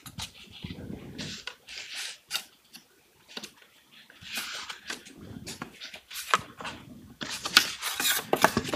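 Flat OSB jig parts handled on a wooden workbench: pieces sliding and scraping against each other, with scattered light clicks and knocks and a quick run of sharper wooden knocks near the end as two long pieces are lifted together.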